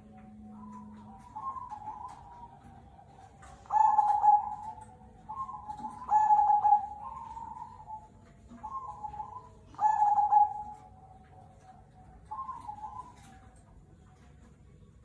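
Zebra dove (perkutut) cooing, a series of short trilled coo phrases repeated every second or two. The loudest phrases come about four, six and ten seconds in, and the calls thin out near the end.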